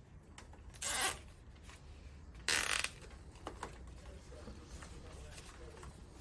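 Two plastic cable ties pulled tight through their ratchet heads, each a short zip, about a second and a half apart, followed by faint handling clicks.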